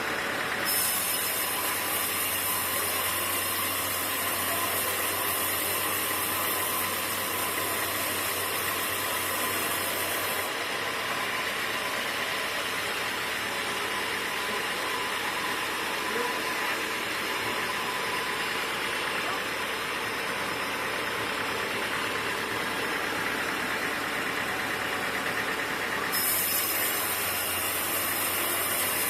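Sawmill machinery running steadily: a continuous mechanical hum and hiss with no distinct cuts or impacts. The tone shifts abruptly about a second in, around ten seconds in and again near the end.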